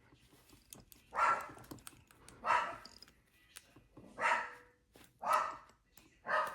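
Dogs barking, five single barks spaced about a second to a second and a half apart.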